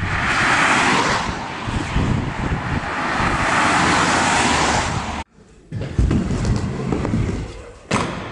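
Cars passing on a road: a rushing tyre-and-road noise that swells twice and then cuts off about five seconds in. A scooter is then heard rolling on a wooden ramp, with a few knocks and a sharp one near the end.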